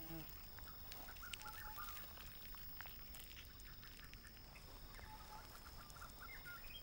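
Faint background ambience: a steady high whine like insects, with a few short chirping calls and small clicks.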